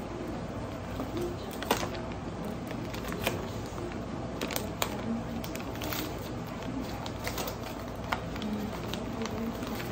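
Padded paper mailer envelope being handled and pulled open by hand: irregular paper rustles and sharp crackles, a few a second at most, over a steady low hum.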